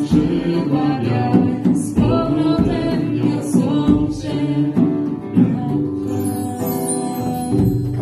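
Band music with guitar and bass playing on after the last sung chorus line of a song, with regular plucked chords.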